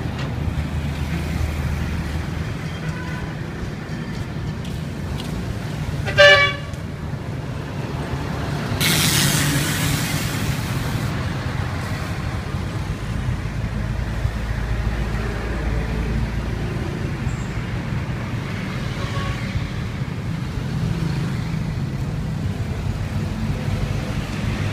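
Street traffic: vehicle engines running steadily, with a short horn toot about six seconds in, the loudest sound, and a rush of hiss lasting about two seconds shortly after.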